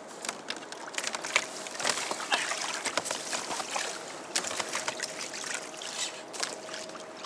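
Water sloshing and lapping against a kayak's hull, with small clicks and knocks of fishing gear and a faint steady whine underneath.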